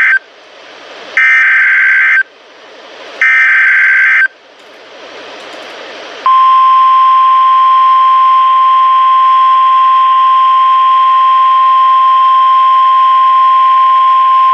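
NOAA Weather Radio SAME alert header: three roughly one-second bursts of buzzing digital data tones with radio hiss between them. About six seconds in, the steady 1050 Hz warning alarm tone starts and holds. The sequence opens a new warning broadcast, here a tornado warning.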